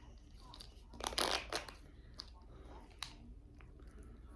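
Handling of small toy packaging: a short rustle about a second in, then a few light clicks.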